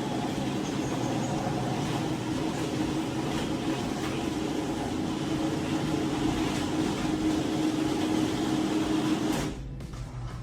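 Electric garage door opener running steadily with a constant hum, then stopping about nine and a half seconds in.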